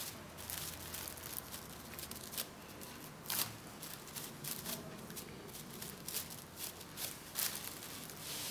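Faint rustling and crinkling of cling film and polystyrene as hands press on and handle a film-wrapped polystyrene block, with a few short, sharper rustles.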